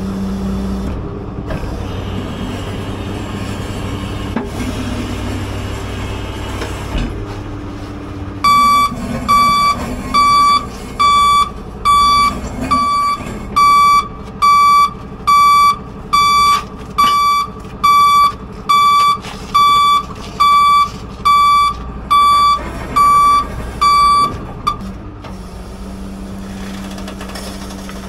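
Tow truck's engine running, then its reversing alarm beeping in an even rhythm, a little more than once a second, for about sixteen seconds as it backs its underlift under a truck's rear wheels; the beeping stops near the end and the engine keeps running.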